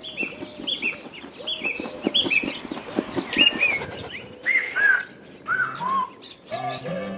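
A small bird tweeting on the soundtrack of an animated clip: quick high chirps in pairs, then a few slower chirps that step down in pitch. Near the end, pitched musical tones come in as the song begins.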